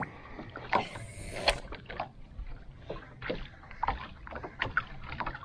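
Water sloshing around a small Gheenoe skiff's hull as it is turned in the current, with irregular knocks and clicks scattered throughout.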